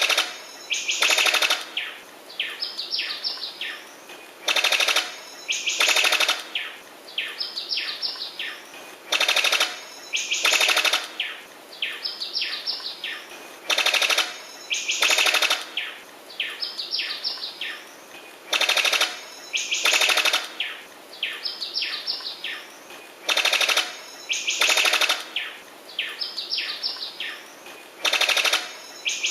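Sickle-billed bird-of-paradise calling: two loud, machine-gun-like rattles followed by a quick run of short, falling whistled notes. The phrase repeats at even intervals, about every four and a half seconds.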